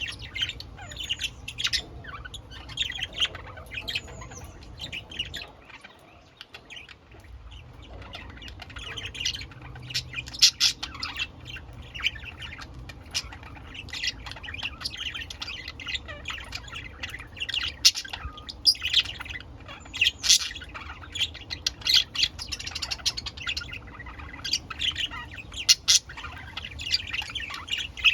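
Pet budgerigars chirping and chattering in a rapid, continuous stream of short high notes, with sharper squawks mixed in and a brief lull about six seconds in.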